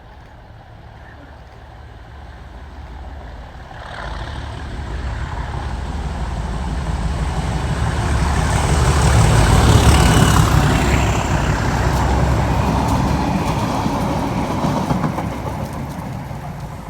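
Class 37 diesel locomotive with an English Electric V12 engine running loudly as it passes with a train, a low engine rumble under wheel noise. It grows from about four seconds in, is loudest around ten seconds, then fades away.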